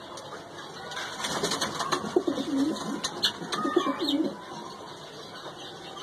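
Domestic pigeons cooing: two low, bending coos between about two and four seconds in, over a few scattered scratchy clicks.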